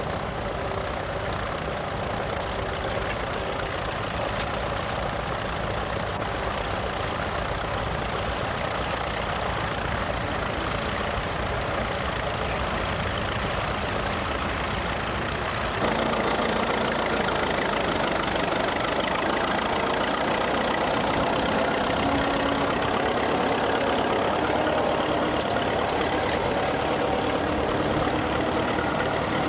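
Vintage tractor engine running steadily, louder from about halfway through.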